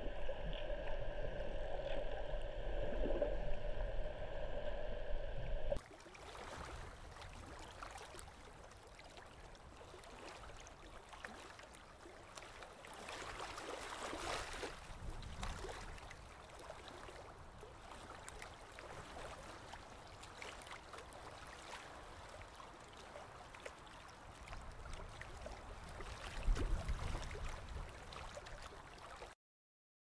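Underwater sound with a steady humming drone of several held tones for about six seconds, then, after an abrupt cut, a quieter, even wash of water noise that stops suddenly just before the end.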